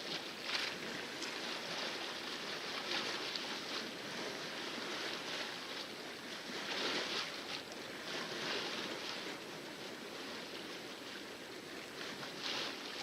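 Water splashing and rushing against a sailboat's hull as she sails with the wind in calm seas, in uneven swells.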